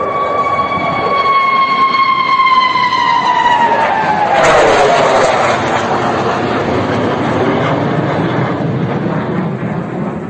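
Fighter jet flying low overhead: a high engine whine with overtones drops steadily in pitch as it passes, then the jet's full roar takes over about four and a half seconds in and carries on.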